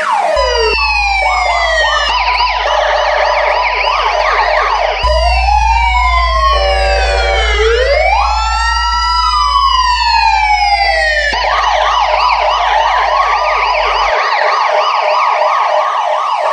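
Police sirens, several tones sounding at once: falling sweeps and a fast, repeating warble, switching about five seconds in to long rising and falling wails, then back to the fast warble about eleven seconds in. A steady low hum runs beneath them and stops a couple of seconds before the end.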